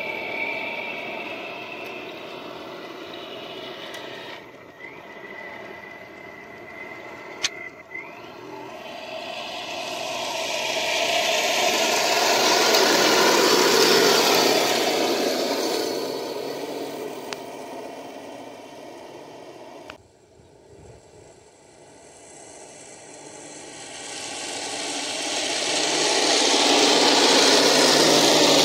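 Henglong radio-controlled T-72 model tank driving, a steady mechanical running noise from its drive. The noise swells loud twice as the tank comes close, about halfway through and again near the end, with a sudden drop in between.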